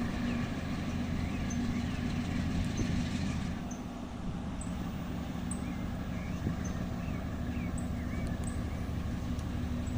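Diesel locomotives of an empty freight train running with a steady low drone and a held engine tone, the higher noise easing off a few seconds in.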